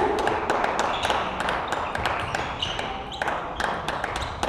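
Table tennis balls clicking irregularly on tables and bats in rallies around the hall, over a steady low murmur of the sports hall.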